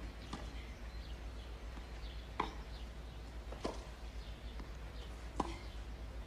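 Tennis ball struck by rackets in a baseline rally on clay: a faint hit just after the start, then three sharp hits a little under two seconds apart, over a steady low hum.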